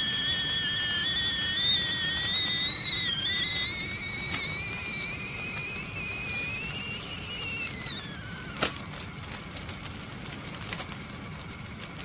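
Tea kettle whistling at the boil, a wavering whistle that slowly climbs in pitch, then drops and dies away about eight seconds in. After that a fire crackles with a few sharp pops.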